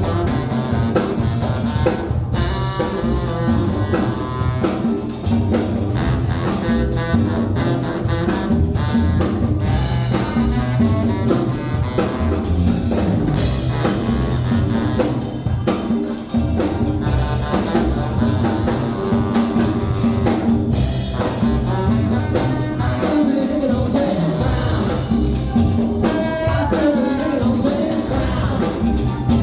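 Band music with a steady drum-kit beat and brass.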